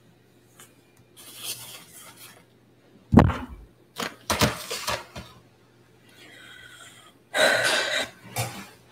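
A dull thump about three seconds in, followed by a person coughing and breathing out noisily in several short bursts, the longest near the end.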